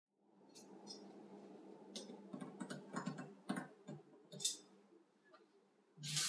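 Metal clicks and knocks from a hand tool working on a kitchen mixer tap over a stainless steel sink, then near the end the tap is turned on and water gushes into the sink.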